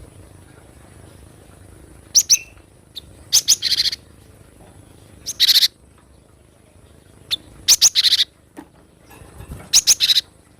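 Cinereous tit (gelatik batu) calling: short clusters of sharp, high-pitched chirps repeated every second or two.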